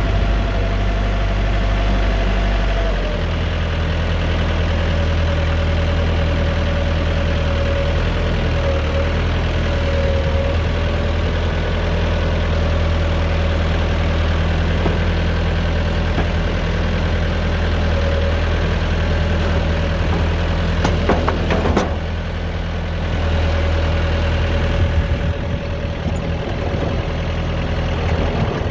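Truck engine running steadily with a low, even hum, joined by a thin steady whine. A short cluster of clicks comes about three quarters of the way through, followed by a brief drop in level.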